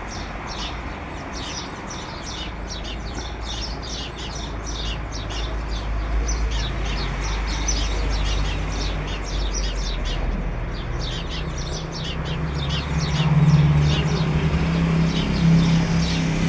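Many small birds chirping and tweeting in a dense, continuous chorus of short high notes. A low steady hum grows in over the last few seconds.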